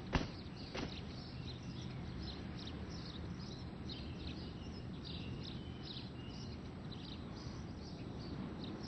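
Birds chirping and twittering over a steady low outdoor hum. A sharp thump at the very start is the loudest sound, and a softer knock follows just under a second in.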